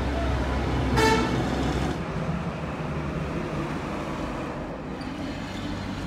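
A vehicle horn gives a short toot about a second in, over the steady low rumble of a running engine that eases off after about two seconds.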